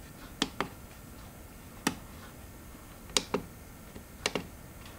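Sharp clicks of the G1200 digital microscope's menu push buttons being pressed, about seven in all, some singly and some in quick pairs.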